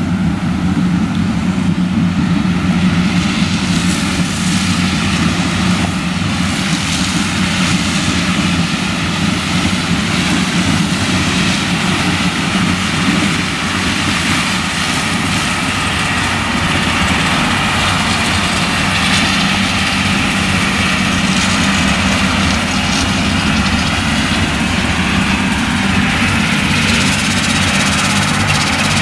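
Claas Lexion 760 TT combine harvester with a nine-row Geringhoff corn header harvesting maize: its diesel engine and threshing machinery run under load with a loud, steady drone.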